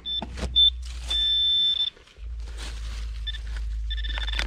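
A metal detector sounding short high beeps and then a longer held tone of nearly a second, as it picks up a target in a freshly dug hole, with two more short beeps near the end. A few knocks at the start as the camera is set down, and a steady low rumble on the microphone that drops out briefly about two seconds in.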